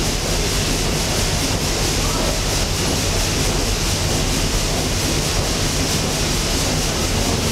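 Triple-expansion reciprocating steam engine running: a steady, loud mechanical clatter with an even beat over a constant hiss.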